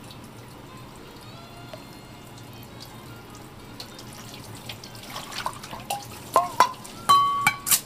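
Water dripping and splashing in a sink, with a cluster of sharp plinks and splashes in the second half, over soft background music.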